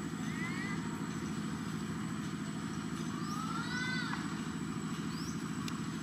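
A steady low engine rumble, like a motor idling, with a few short chirping calls over it; the longest is a rising-then-falling call about three and a half seconds in.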